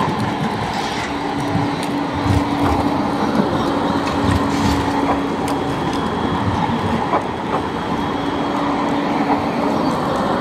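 Low-floor articulated electric tram running past close by on street track: a steady motor hum over the rumble of its wheels on the rails, with scattered clicks from the wheels.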